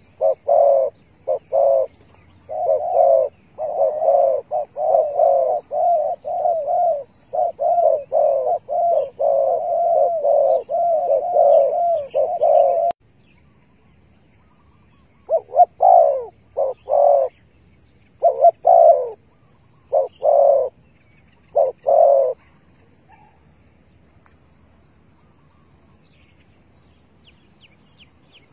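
Spotted dove cooing: a long run of quick repeated coo notes, then after a short pause several shorter, spaced coo phrases.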